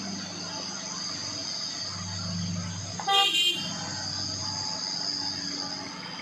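A vehicle horn gives a short toot of about half a second, about three seconds in. Under it is the steady running of cars and a loaded truck passing close by on the uphill road.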